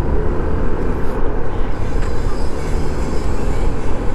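Yamaha NMAX 155 scooter under way at a steady road speed: a constant rumble of wind and road noise, with the single-cylinder engine's steady drone underneath.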